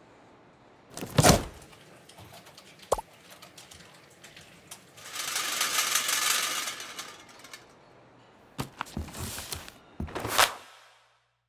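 A cardboard box being handled and moved along a steel roller conveyor. There is a thump about a second in and a click near three seconds. Around the middle a hissing rush swells and fades as the box runs over the rollers, then come several light taps and a last thump near the end.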